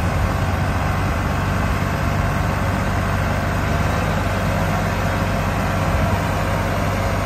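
Diesel engines of a New Holland 3630 and a Sonalika 750 DI tractor running steadily and evenly, a low, unchanging engine note with no revving.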